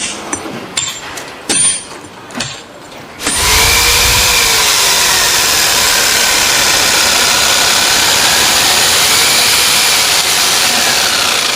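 A few knocks and clicks, then a power tool starts about three seconds in and runs loudly with a whine that slowly falls and rises in pitch.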